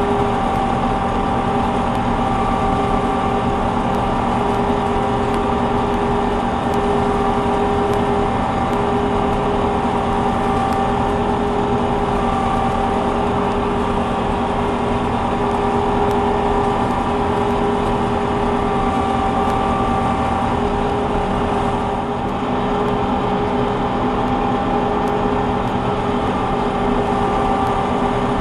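Combine harvester running steadily while harvesting soybeans, a constant machine drone with several steady pitched tones.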